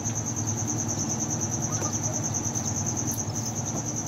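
Crickets chirping in a steady, high, rapidly pulsing trill.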